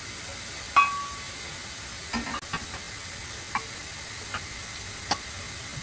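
Egg fried rice sizzling steadily in a frying pan while a wooden spatula stirs it, knocking against the pan several times. A sharp ringing clink comes about a second in.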